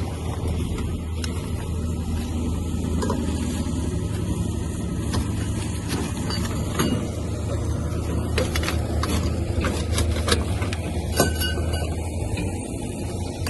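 Truck engine running steadily, with occasional light clicks and rattles.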